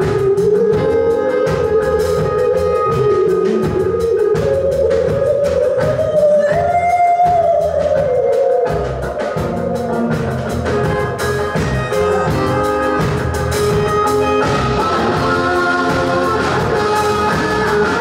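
Live band playing: a steady drum-kit beat under electric guitar and bass, with a wavering lead melody that rises and falls through the first half, after which shorter guitar notes take over.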